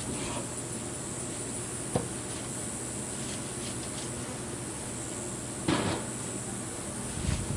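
Two knocks, a sharp short one about two seconds in and a louder, longer clunk near the six-second mark, over a steady high insect buzz and a low hum.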